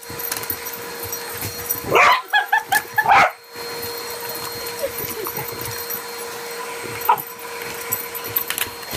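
Small dog barking at a running vacuum cleaner: a bark about two seconds in, a quick run of short yips, then another bark, over the vacuum's steady hum.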